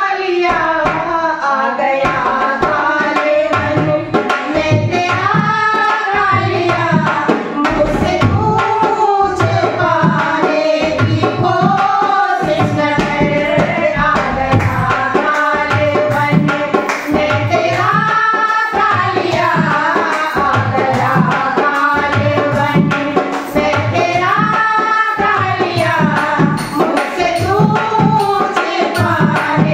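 Women singing a Hindi devotional bhajan to Krishna in long melodic phrases, with a hand drum keeping a steady rhythm.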